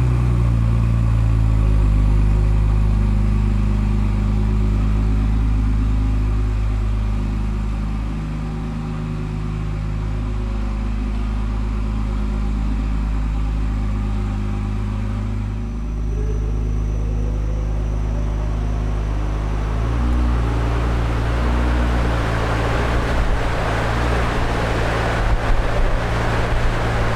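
Ferrari 296 GTS twin-turbo V6 with a full Capristo exhaust idling steadily. About two-thirds of the way through the exhaust grows louder and rougher, with sharp crackles near the end.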